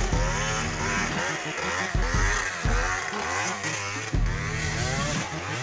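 Yamaha DTR 125 two-stroke dirt bike revving up and down as it climbs a steep trail, the engine note rising and falling again and again.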